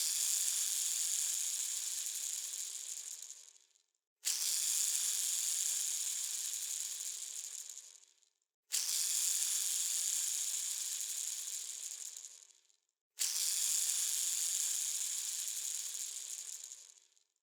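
A ball bearing spinning with a high, fine whirr, set going four times; each spin starts suddenly and dies away over about four seconds as it slows.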